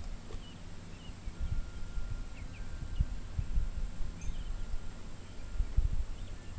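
Outdoor ambience: low wind rumble and soft knocks on the microphone, with a few faint, brief bird chirps.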